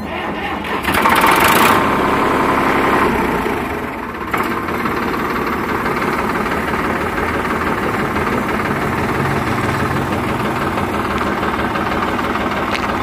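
Three-cylinder diesel engine of a Sonalika DI-35 tractor running. It is louder for about two seconds near the start, then settles to a steady idle.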